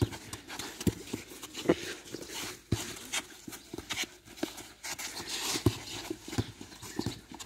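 Players' running footsteps on artificial turf mixed with the thuds of a football being kicked: irregular thuds, a few a second.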